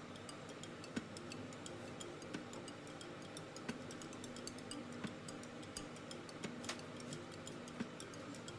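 Faint, irregular light clicks and taps, several a second, over a low steady hum.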